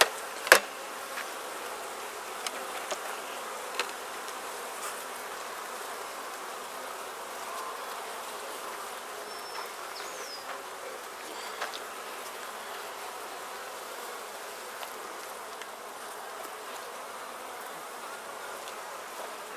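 A colony of Italian–Carniolan mix honeybees buzzing steadily from an open Langstroth hive. A sharp click comes about half a second in, and a few fainter clicks follow.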